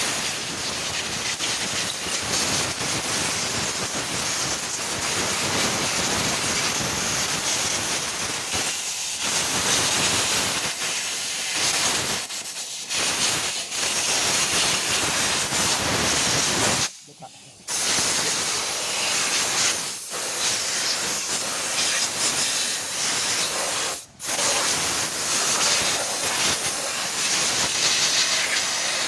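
Compressed-air blow gun hissing steadily as it blasts over a freshly cleaned truck engine, cut by a few short breaks where the trigger is let go.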